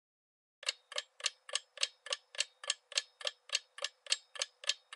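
Clock-tick sound effect for a quiz countdown timer: evenly spaced sharp ticks, about three and a half a second, starting about half a second in.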